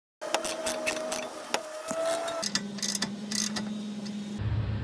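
Irregular metallic clicks and clinks of a socket wrench and ratchet working the nuts of a steel exhaust clamp, over a steady hum. Near the end a steady low hum takes over.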